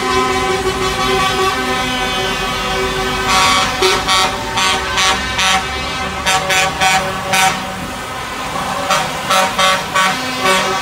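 Several lorry air horns sounding together in a held, multi-toned blare, with a run of short repeated toots starting about three seconds in and again near the end, over the low rumble of lorry engines running.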